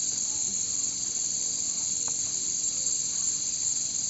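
Insect chorus in the forest, a steady high-pitched drone that holds without a break.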